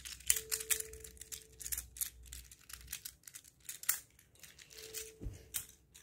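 Infinity cube being flipped and folded in the hands: a run of light, irregular clicks and clacks as its hinged blocks snap over, with a soft thump a little after five seconds in.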